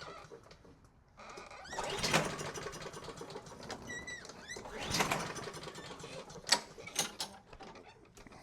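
Two pulls on the recoil starter of a Honda lawn mower engine, each a swell of cranking noise about a second long, with the engine turning over but not firing. It is running on only a squirt of carb cleaner with no fuel in the tank.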